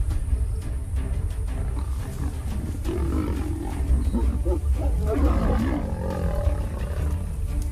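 Lioness growling, loudest about three to six seconds in, over a steady low rumble.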